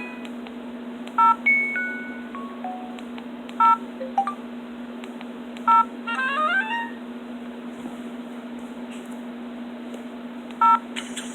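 Ringtones of an LG 440G phone played through its small speaker: short snippets of electronic tunes, a falling run of single notes and later a quick rising arpeggio, broken up by four short, sharp double beeps. A steady low hum runs underneath.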